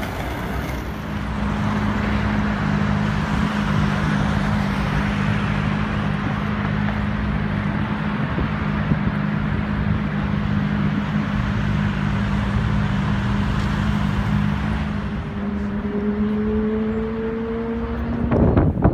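City street traffic: a steady rush of passing cars under a low, even engine hum, with a second engine tone rising slowly near the end.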